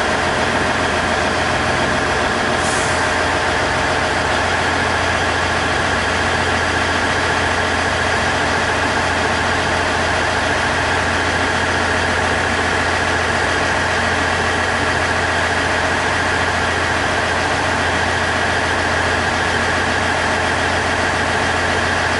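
Diesel engine of a stationary KiHa 110 series railcar idling steadily close by: a constant low hum with a steady higher tone over it. A brief hiss comes about three seconds in.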